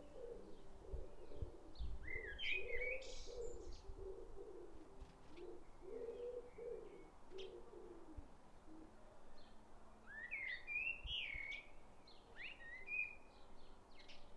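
Eurasian blackbird singing two warbled, fluting phrases, about two seconds in and again about ten seconds in. A lower, wavering sound runs beneath it through the first half.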